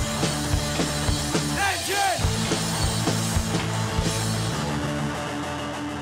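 Rock band playing live: a drum kit keeps a steady beat under sustained electric bass and electric guitar. A short bending tone cuts in about two seconds in, and near the end the low notes drop away, leaving mostly drums and cymbal hiss.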